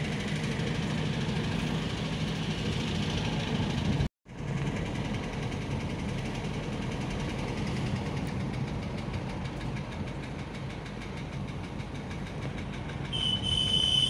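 Car engine and road noise heard from inside the moving car's cabin, steady, with a brief gap of silence about four seconds in. A high steady tone comes in near the end.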